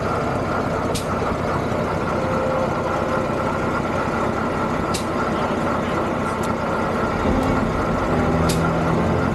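Antique tractor engine idling steadily, with a few faint clicks; its low hum grows stronger for a couple of seconds near the end.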